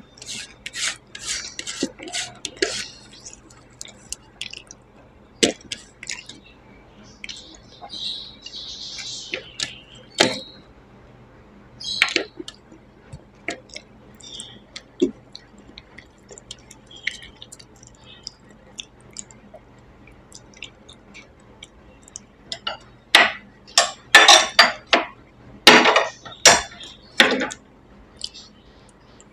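Eating by hand from a steel plate: fingers working rice and fish curry against the metal, light clinks of plate and dishes, and close chewing and mouth sounds. A run of louder bursts comes in the last six seconds.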